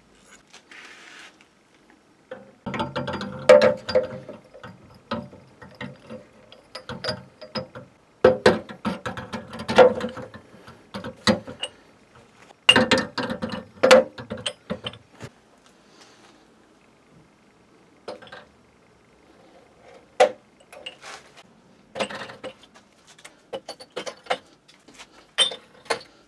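Glass beer bottles being set into a metal beer crate's compartment grid, clinking and knocking against the dividers and against each other in several bursts, some knocks leaving a short ring.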